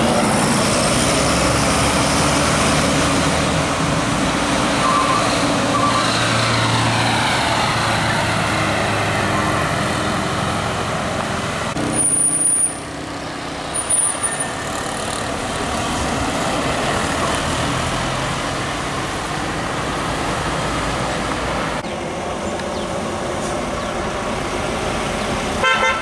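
Diesel tour coaches and a minibus driving past one after another, engines running and tyres on the road, with a brief drop in the sound about twelve seconds in.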